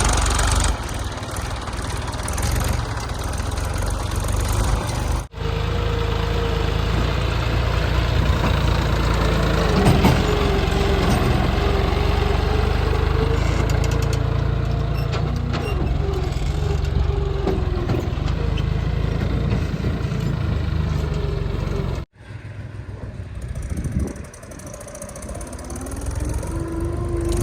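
Diesel engine of a JCB 3DX backhoe loader running while it works, with a steady whine that wavers in pitch through the middle and an engine rev that rises near the end. The sound breaks off sharply twice, about five seconds in and again about twenty-two seconds in.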